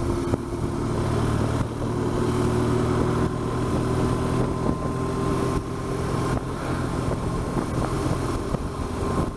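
BMW R1200GS boxer-twin engine running at a steady cruising speed, with wind rush over the microphone.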